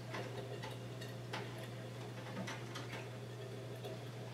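Aquarium gravel siphon working the substrate: gravel and sand clicking irregularly, a few ticks a second, as the hose tip stirs and draws it up. A steady low hum lies underneath.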